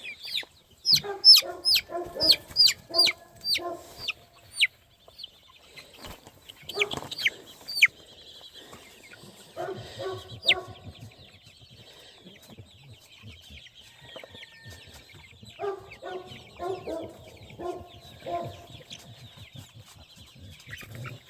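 Chickens clucking in short bursts, with a quick run of sharp, high, falling peeps over the first few seconds and a few more about seven to eight seconds in.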